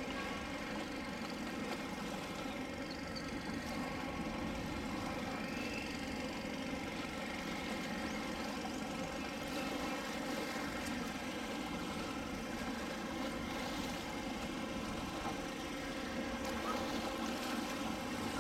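An engine running steadily, a constant drone that does not change.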